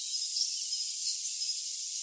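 Dense, steady high-pitched chorus of crickets, with a few short songbird chirps and whistles over it.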